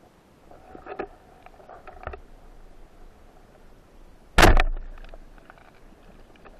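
Underwater knocks and clicks: a few light ones about one and two seconds in, then one loud, sharp knock about four and a half seconds in that dies away quickly.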